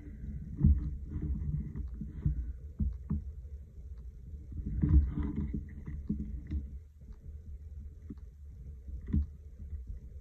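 Handling noise at a craft table: a low, uneven rumble of hands and a marker pen moving over paper and the tabletop, with a few dull thumps, one near the start, one about halfway and one near the end.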